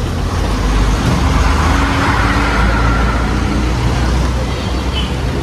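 Road vehicle noise: a steady low rumble with a broad hiss that swells about two seconds in and then eases.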